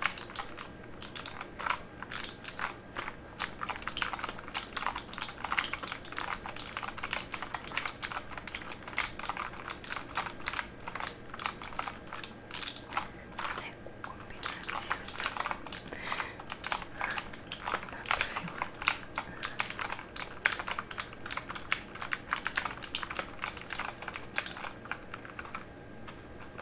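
Typing on a mechanical keyboard: a fast, irregular run of key clicks with a short pause about halfway through.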